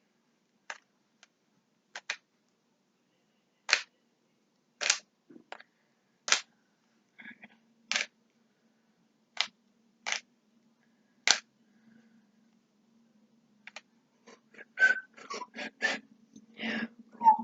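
Speed cube being turned by hand: the plastic layers clack in single sharp turns a second or two apart, then come quicker and closer together in the last few seconds.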